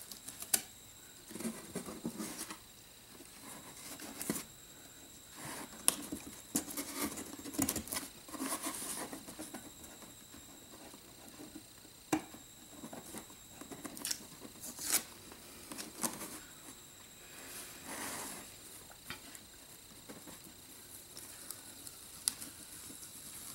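Blue masking tape being peeled in strips off a model rocket's body tube and fins: short crackly rips and rustles that come and go with pauses between.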